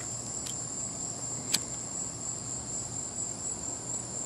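Crickets chirring in a steady, high-pitched trill, with one sharp click about a second and a half in.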